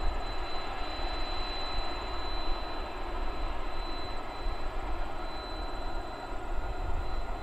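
Boeing 747 jet airliner's four turbofan engines running on the runway for departure, a steady deep rumble with a thin steady high tone over it.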